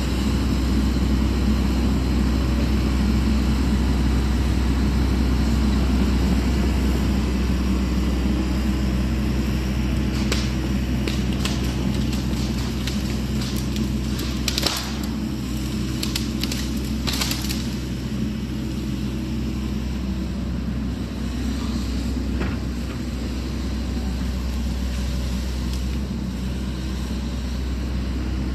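Sany SY80 excavator's diesel engine running steadily as the machine turns and moves across cleared ground, fading a little in the second half. A scatter of sharp cracks and clicks comes between about ten and seventeen seconds in.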